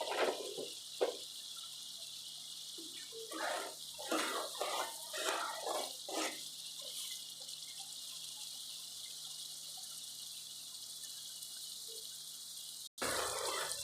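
Spice paste frying in hot oil in a kadhai with a steady sizzle, and a run of scraping stirs of a spoon against the pan a few seconds in.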